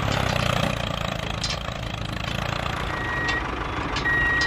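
Miniature tractor running with a steady low engine-like hum, while a reversing alarm gives two clean high beeps, the first about three seconds in and the second near the end.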